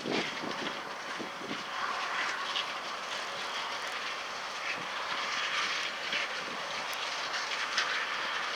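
Combine harvester running steadily in the field, an even mechanical hiss.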